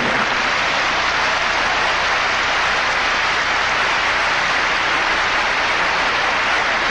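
Large arena crowd applauding, a steady dense clapping.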